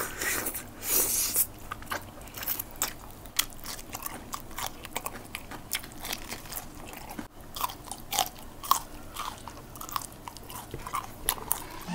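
Two people eating saucy chicken adobo with their fingers close to the microphone: wet chewing, lip smacks and crisp bites, some into green chillies. There are loud sucking sounds in the first second and a half.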